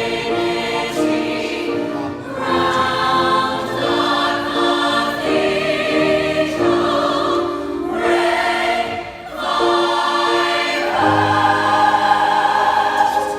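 A group of voices singing together as a choir, in held notes grouped into short phrases with brief breaks between them.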